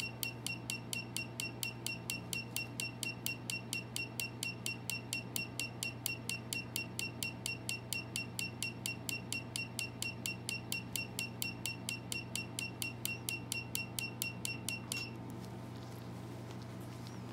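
Tattoo-removal laser firing a rapid, even train of pulses at about five a second, each a sharp snap with a short high beep, over a steady low hum. The pulsing stops suddenly near the end.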